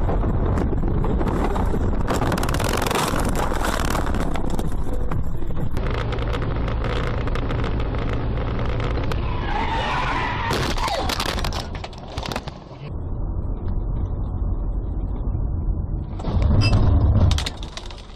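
Car driving noise, engine and tyres on the road, with tyres skidding; a louder noisy burst of about a second near the end.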